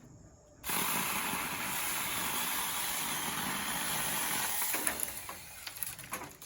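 A Saker 6-inch 20 V battery mini chainsaw starts up about half a second in and cuts through hard, dry wood for about four seconds. It then eases off, with a few clicks near the end.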